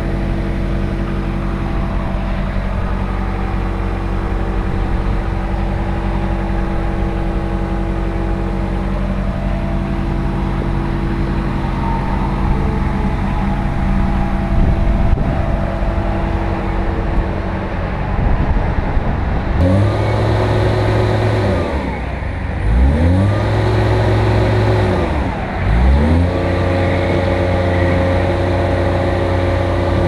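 Caterpillar 226B3 skid steer's diesel engine idling steadily, then, about two-thirds of the way through, throttled up and back down twice before being brought up to high speed and held there.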